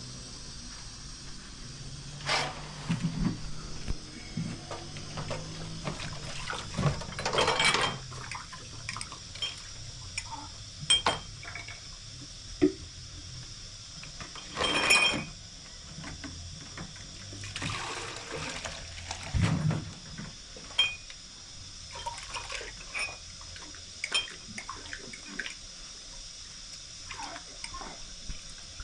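Water splashing and pouring in short bursts, among scattered clinks and knocks of things being handled.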